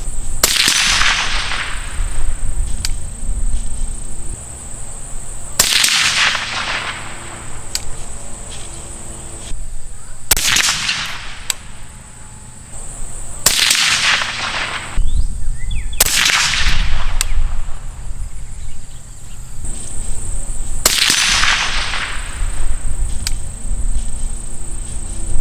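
Six suppressed rifle shots from a 6.5 Grendel AR-15 pistol, fired a few seconds apart, each a sharp report with an echoing tail. A steady high insect drone and a low wind rumble run underneath.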